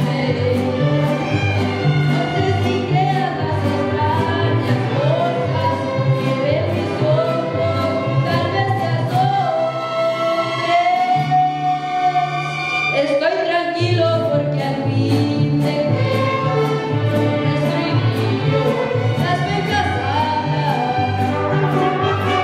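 Mariachi ensemble playing: violins and guitars over an alternating guitarrón bass line and a steady strummed rhythm, with a boy singing the melody into a microphone and holding one long note around the middle.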